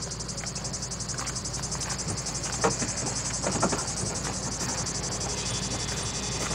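Insects chirping in a steady, rapid pulsing drone, over the low hum of an idling vehicle engine.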